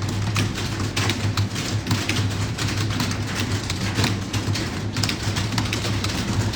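Several computer keyboards being typed on at once, a fast, irregular clatter of overlapping key clicks, over a steady low hum.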